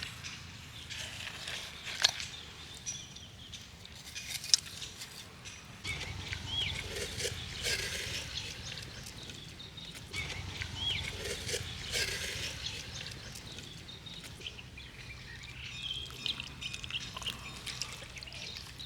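Scattered small knocks and scrapes of a watermelon being hollowed out, with a few sharp ticks, over outdoor ambience with short chirping calls a couple of times.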